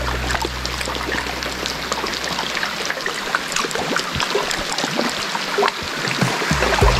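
Water splashing and trickling: a steady rushing hiss dotted with many small splashes and drips.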